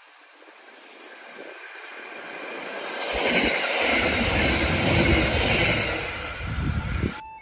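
Merseyrail Class 777 electric train approaching and passing close by, the noise of wheels on rail building up, loudest as it goes past, then easing, before cutting off suddenly near the end.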